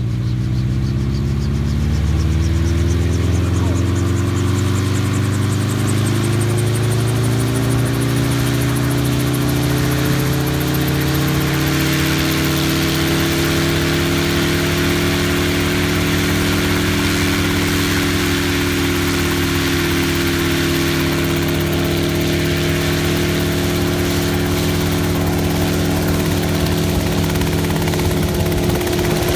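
RotorWay Scorpion helicopter with a Subaru engine conversion running on the ground, main and tail rotors turning. The engine and rotor pitch rises over the first eight seconds or so as it runs up to speed, then holds steady.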